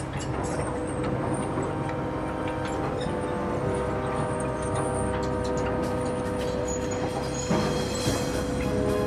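Carson RC cable excavator's electric drive and tracks running as it crawls along, a steady low rumble and clatter. Background music with sustained chords plays over it.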